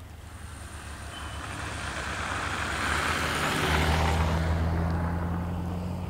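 Subaru Impreza WRX STI's flat-four engine and its tyres on snow as the car drives by towing a small box trailer. The sound builds to a peak about two-thirds of the way through and then eases off, with a steady low engine drone in the later part.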